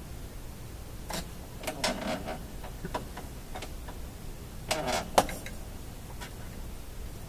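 Handling noises: a few scattered clicks and light rattles as a hand works around an opened tube radio chassis, the sharpest click about five seconds in.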